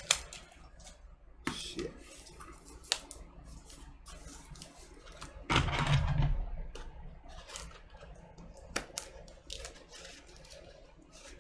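A cardboard record mailer being handled and its thick packing tape cut with scissors: scattered sharp snips, clicks and rustles, with a louder stretch of handling noise about halfway through.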